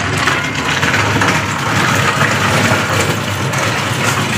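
A motor vehicle engine running steadily at idle, a continuous low hum under a dense, even noise.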